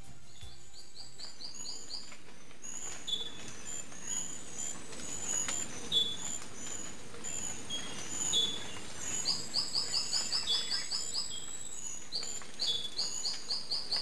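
A chorus of several frog species calling together: rapid runs of short, high chirps, about ten a second, overlapping with single shorter notes at a lower and at a higher pitch.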